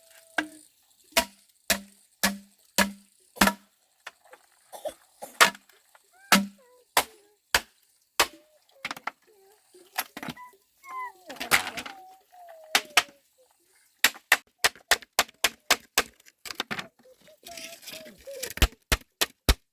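A series of sharp knocks, first evenly spaced about every half second with a dull thud, then a quicker run of about three to four strokes a second in the last few seconds. A short noisy stretch with a few high gliding sounds comes midway.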